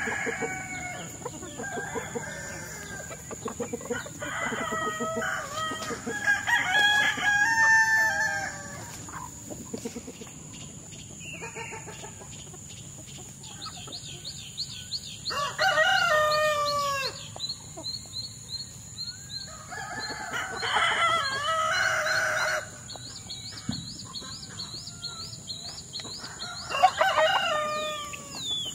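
Quail Brabanconne roosters crowing several times, each a long drawn-out crow, with hens clucking in between.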